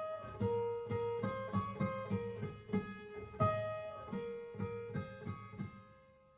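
Intro music: a melody of plucked acoustic guitar notes that fades out near the end.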